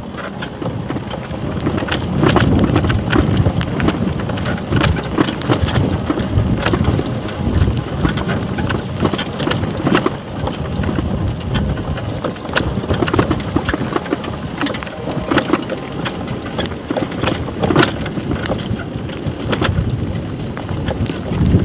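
Yamaha sport motorcycle ridden over a rough dirt track: the engine running under wind noise on the microphone, with frequent knocks and rattles as the bike jolts over stones and ruts.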